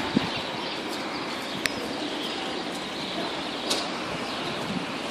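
Steady background noise of a railway station, with a few sharp clicks; pigeons start cooing faintly near the end.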